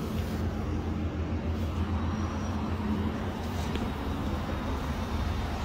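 Steady low rumble of a running motor vehicle, with no clear changes.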